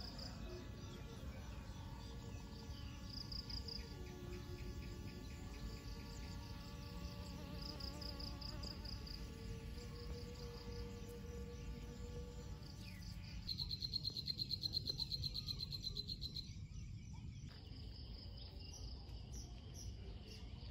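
Insects chirping outdoors in short pulsed bursts, high-pitched and repeating every second or two. Just past halfway, a louder, faster trill of the same kind runs for about three seconds.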